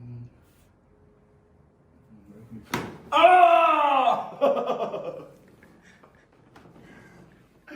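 A single sharp crack of a chiropractic adjustment nearly three seconds in, followed at once by a loud, drawn-out cry from the person being adjusted, then a few shorter vocal sounds.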